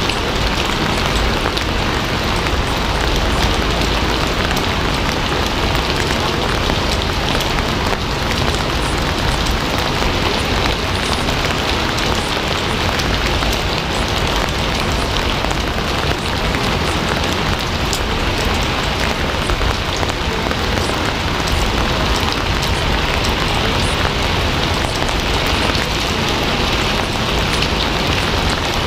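Steady heavy rain falling, a dense even hiss of many drops on a surface with fine drop ticks throughout.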